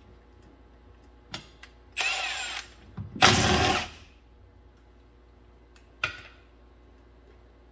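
Milwaukee Fuel brushless cordless ratchet spinning in two short runs about two and three seconds in, the second louder, backing out the differential bearing cap bolts. A sharp metallic click about six seconds in.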